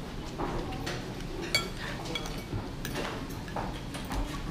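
Metal spoon and fork clinking against a ceramic bowl while eating, with one sharp ringing clink about a second and a half in and a few lighter taps.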